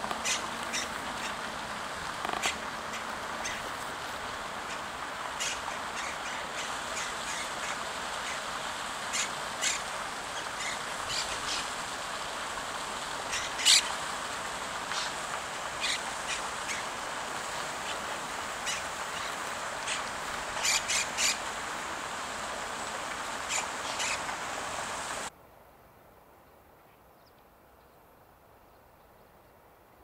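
Steady splashing of a fountain, with many short, sharp calls of monk parakeets and black-headed gulls over it. About 25 seconds in, all of it cuts off abruptly to a much quieter background.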